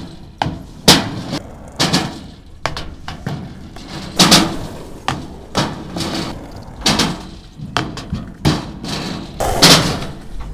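Skateboards rolling over asphalt and a small launch ramp, with repeated sharp clacks and thuds of tails popping, boards hitting the ramp and landing, roughly every half second to a second.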